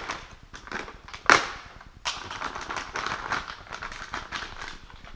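Plastic packaging bag crinkling and crackling as it is pulled open and a clamp is taken out, with one sharp loud crack about a second in.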